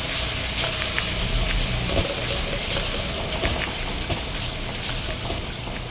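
Zest simmering in a pan: a steady hiss with a few faint small ticks.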